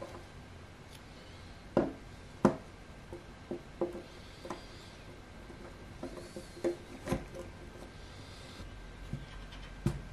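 Small brass binocular parts being handled on a tabletop: scattered light knocks and clicks, the sharpest two about two seconds in and more around seven seconds and near the end, with faint rubbing between.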